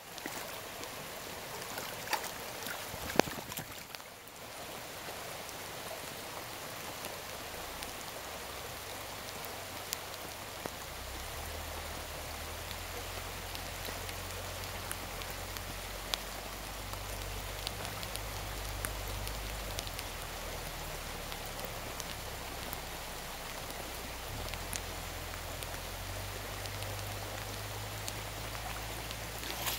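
Rain pattering on a shallow, flowing stream: a steady hiss of water with scattered sharp drip ticks. A low rumble joins about eleven seconds in.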